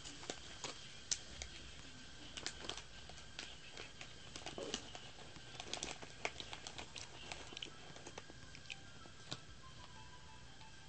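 Irregular crisp crackles and clicks of crunchy snack chips being eaten, denser in the first half and thinning out toward the end, over a faint steady high-pitched tone.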